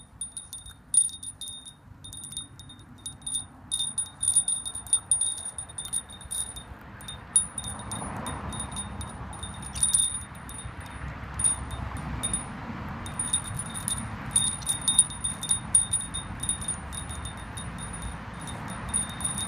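Small metal-tube wind chime jangling and ringing in irregular clusters of strikes as a bulldog puppy chews and noses its hanging tubes, with brief pauses about seven and twelve seconds in. A steady low rushing noise sits underneath from about eight seconds in.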